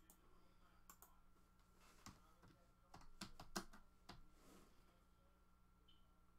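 Near silence broken by faint, scattered clicks and taps, with a small cluster of them about three seconds in.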